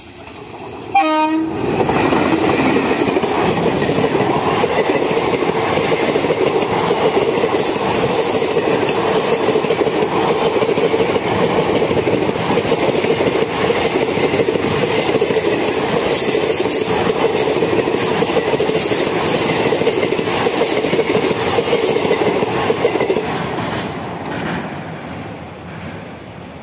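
An Indian Railways electric locomotive sounds a short horn blast about a second in, then it and its passenger coaches pass close by, the wheels and coaches rumbling loudly on the track for some twenty seconds before fading near the end as the last coaches move away.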